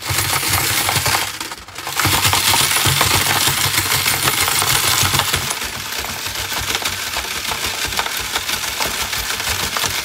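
Steel ball bearings, connector pins and metal brackets rattling and jingling on the wire mesh of a stacked sieve set as it is shaken, sifting the ash out of the incinerated, ball-milled pins. The shaking pauses briefly about a second and a half in, then runs on steadily.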